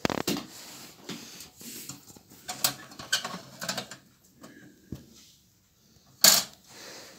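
Irregular clicks and knocks from hands handling the metal tank of a Petromax Rapid pressure lantern, with one sharp knock about six seconds in.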